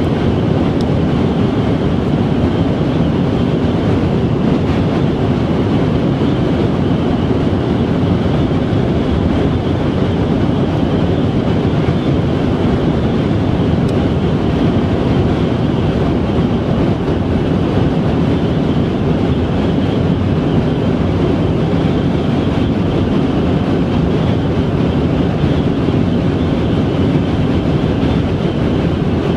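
Car travelling at highway speed: steady road and wind noise with no change throughout.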